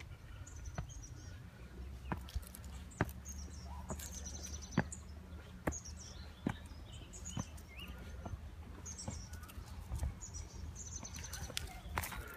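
Footsteps on a gravel garden path and steps, a little more than one step a second, with small birds chirping again and again in the background.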